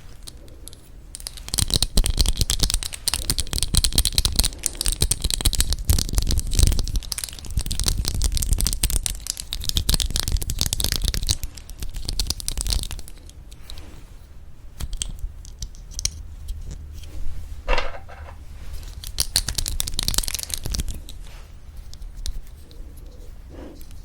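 Close-miked crinkling and scratching of handled material, dense and rapid for about eleven seconds, then thinning to scattered light taps and clicks.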